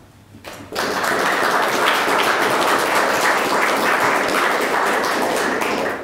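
Audience applauding, a dense run of many hands clapping that starts suddenly under a second in and holds steady.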